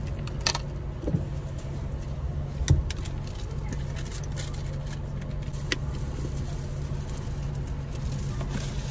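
Light metallic jingling and clicking of small items being handled inside a car cabin, with a sharper knock a little under three seconds in, over the steady low hum of the idling car engine.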